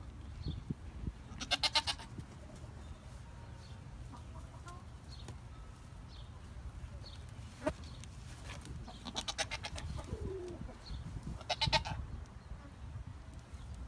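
Goats bleating three times, each bleat a wavering, pulsing cry, about two seconds in, around nine seconds and again near twelve seconds.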